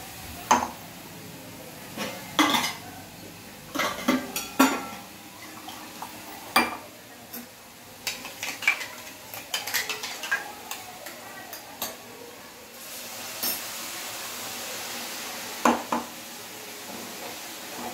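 Metal spoon clinking and scraping against a small steel bowl while water is mixed into ground masala, with sharp irregular clinks. Past the middle a steady sizzle of frying rises from the kadhai, with more spoon clanks against the pan.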